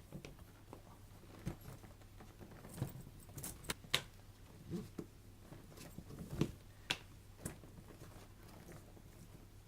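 Gear being handled and rummaged through in a pack: scattered light clicks, taps and rattles, with the sharpest clicks coming between about three and seven seconds in.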